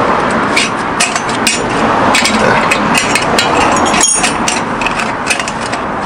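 Irregular clicks and knocks of metal being handled, from a small spanner working the fittings of a compact camping stove.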